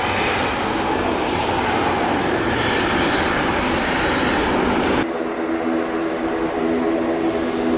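Boeing 737 jet engines at high power as the airliner rolls along the runway, a loud steady roar. About five seconds in the sound cuts abruptly to a Boeing 737-800's engines running at low power while lining up, a steadier, slightly quieter droning hum.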